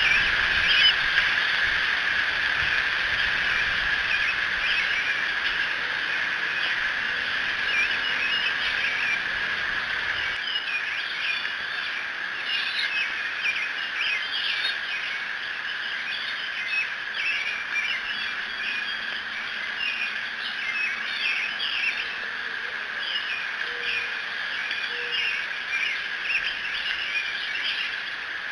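Birds chirping and singing many short, quick notes over a steady high-pitched hum. A low rumble underneath stops suddenly about ten seconds in.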